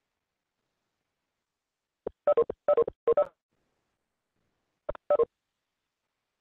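A voice coming through an online call in short, choppy fragments that cut in and out, too broken up to make out words: a cluster of clipped bursts about two seconds in and two more about five seconds in.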